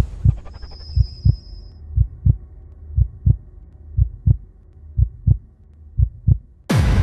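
Heartbeat sound effect: low double thumps, one pair about every second, steady throughout. Near the end a sudden loud hit breaks in as dark soundtrack music starts.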